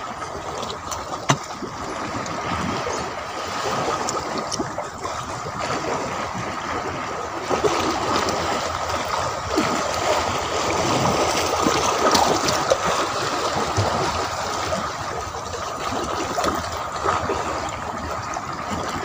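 Shallow seawater washing and trickling around shoreline rocks, a steady wash with a few small splashes and clicks.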